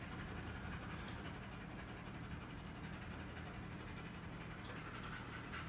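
German Shepherd panting faintly and steadily.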